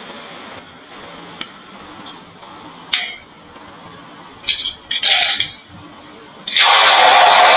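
Marbles clicking against the wooden marble run: a few separate sharp clacks spaced a second or more apart, then, about six and a half seconds in, a sudden loud, continuous clattering rush.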